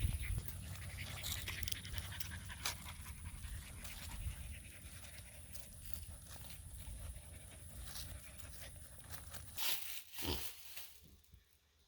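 A large livestock guardian dog panting close by, with small rustling clicks and a couple of louder knocks about ten seconds in; it grows quieter near the end.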